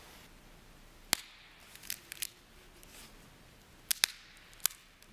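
Large communion wafer being snapped into pieces by hand: a series of about seven sharp, crisp cracks, a loud one about a second in, a quick cluster around two seconds, a close pair just before four seconds and a last snap soon after.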